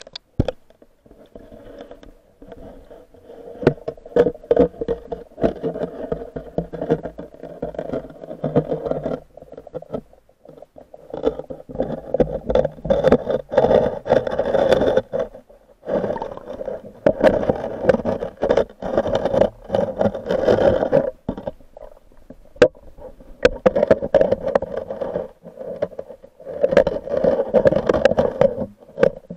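Muffled rushing of stream water heard through a submerged camera's housing, coming in surges of a few seconds with brief lulls, with scattered sharp clicks and knocks against the housing.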